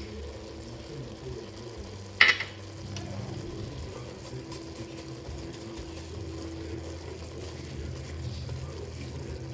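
Browned ground meat sizzling in an enamelled pot while a wooden spoon stirs and scrapes through it. There is one sharp clink about two seconds in.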